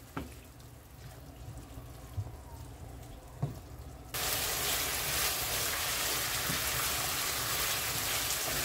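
Ground beef, bell pepper, tomato and ketchup sauce frying in a pan. At first it is quiet, with a few light taps of a wooden spoon. About four seconds in, a loud, steady sizzle cuts in suddenly and goes on evenly.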